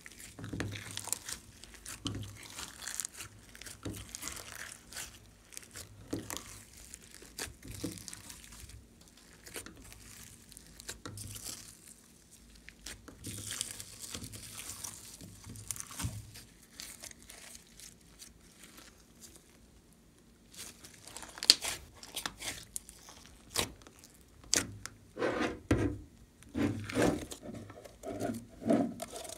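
Hands squishing and kneading glossy slime mixed with foam beads, glitter and sequins: a string of crackling, sticky clicks and squelches. In the last few seconds come louder squelching pops as the slime is pulled out of the glass dish.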